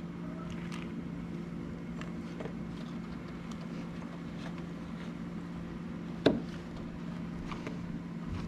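A steady low mechanical hum, with scattered small clicks and one sharp knock about six seconds in.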